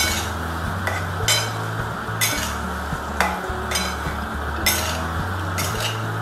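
A flat metal spatula stirring and scraping a thick vegetable curry of baby corn and peas around a black kadai, with a sharp scrape about once a second over a soft sizzle.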